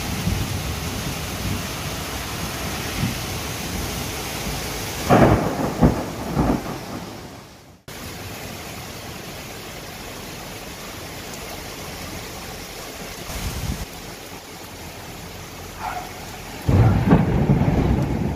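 Torrential thunderstorm rain falling steadily, with two loud claps of thunder, about five seconds in and again near the end. The rain sound drops abruptly and comes back quieter a little before the middle.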